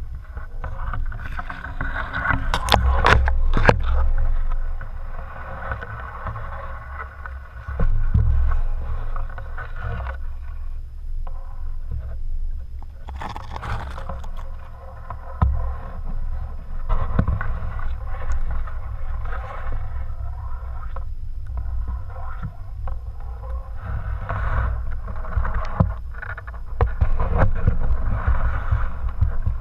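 Flowing spring water heard through an underwater camera housing: a steady, muffled low rumble with bubbling, clicks and knocks against the housing, louder for a moment about 3 seconds and 8 seconds in.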